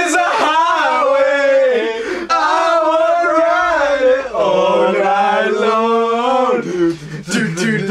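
Drunken young men chanting and singing together loudly, long wordless sliding notes with a wavering pitch, dropping to a low held note near the end. A few sharp clicks come just before it ends.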